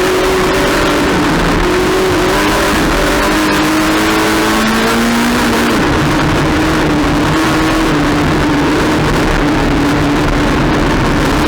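Race car engine running hard under load, its pitch climbing steadily and then dropping sharply about halfway through before holding steady, over loud wind and road noise.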